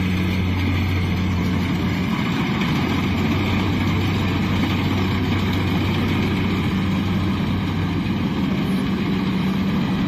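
Kubota DC-70 rice combine harvester's diesel engine running at a steady speed as the machine drives along the field edge, a constant low drone with a mechanical rattle over it.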